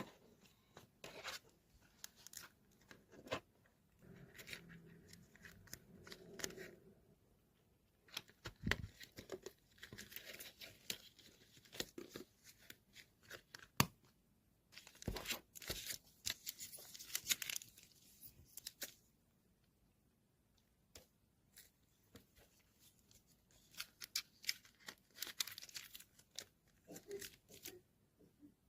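Faint, irregular rustling and tearing noises made up of quick scratchy clicks, coming in clusters with a quieter pause a little after the middle.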